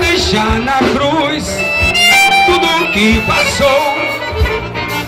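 Live gospel band music amplified over a PA, an instrumental passage in which a lead instrument carries the melody with some held high notes over a steady low drum beat.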